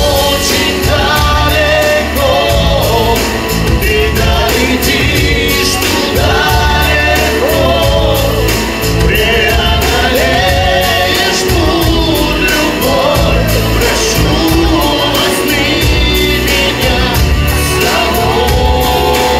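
Man singing a Russian song into a handheld microphone over a backing track with a steady bass beat.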